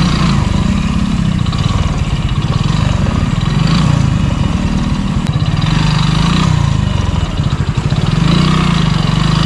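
Motorcycle engine running in low gear while the bike is ridden through slippery mud, its note rising and falling several times with the throttle.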